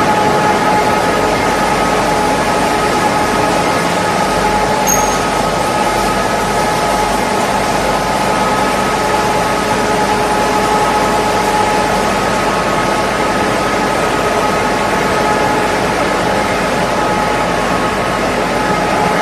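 Wood pellet production line machinery running: a loud, steady mechanical din with a few constant whining tones over it.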